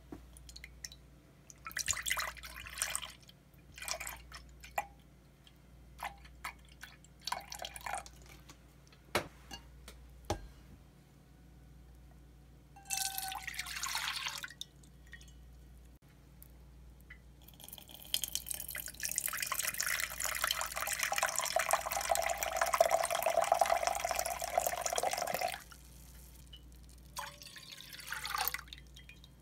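Soy sauce and other seasoning liquids poured from a glass measuring cup into a stainless steel saucepan, in several short pours and one long steady pour of about seven seconds near the middle, with a couple of light clinks in between.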